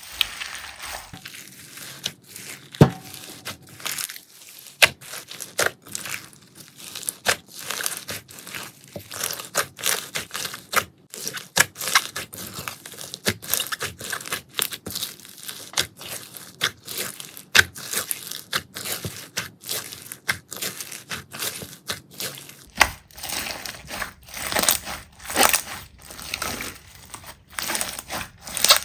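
Slime being squeezed and pressed by hand, giving a dense, irregular run of sharp crackling and popping clicks.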